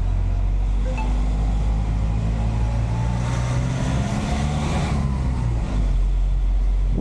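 Truck engine running, heard from inside the cab while driving. Its pitch climbs over a couple of seconds as the truck speeds up, then drops back about five seconds in.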